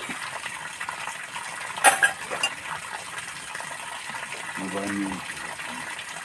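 Steel dishes and utensils clinking as they are washed by hand, with two sharp clanks about two seconds in and lighter knocks otherwise. Water runs steadily underneath.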